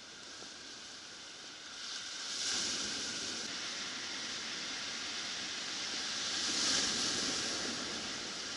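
Ocean waves breaking and washing up a cobble beach, swelling twice about four seconds apart.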